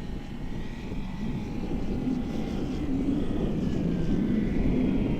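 Electric motor and propeller of a large RC model de Havilland Beaver running with a thin, steady whine, under heavy low rumble from gusty wind on the microphone. The sound grows slightly louder toward the end.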